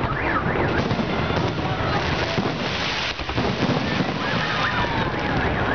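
Fireworks display: a dense, continuous crackle of bursting shells and small bangs, with high whistles gliding up and down through it.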